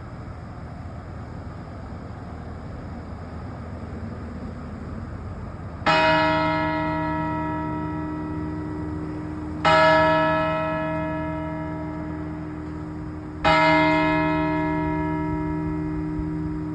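A church bell tolling: three strokes, the first about six seconds in, then about every four seconds, each ringing on and slowly fading before the next. The strokes are all at the same pitch, over a steady low rumble.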